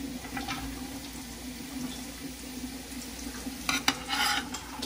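Chopped onions, garlic, bell pepper and celery sizzling gently in oil in a stainless stockpot, sautéing as the vegetable base for a gumbo, over a steady low hum. Near the end a spoon starts stirring and scraping against the pot.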